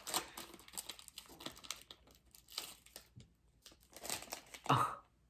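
Foil wrapper of a Pokémon TCG Champion's Path booster pack being torn open and crinkled by hand, a dense run of crackles with a pause in the middle.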